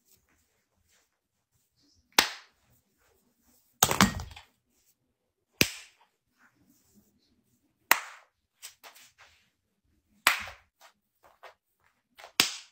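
A handful of sharp knocks, about six, one every two seconds or so, with near silence between.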